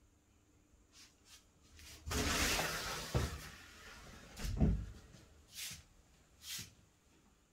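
Objects being handled and set down: a rustle of about a second and a half, a couple of dull knocks, then two short scrapes.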